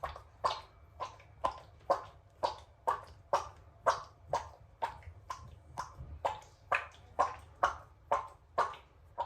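A fat house cat's belly making a regular run of short, strange sounds, about two a second, as its stomach is touched; the uploader says the cat is not sick.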